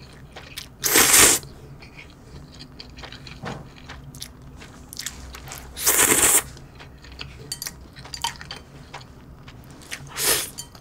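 A person slurping instant ramyeon noodles from a bowl, with three loud slurps about a second in, around six seconds in and near the end, and quiet chewing between them.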